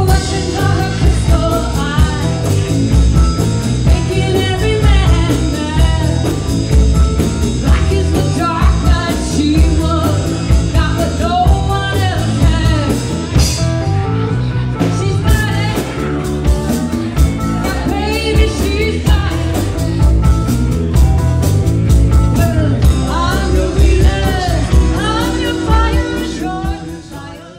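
Live rock band playing: a woman singing lead over electric guitars and a drum kit. The music fades out near the end.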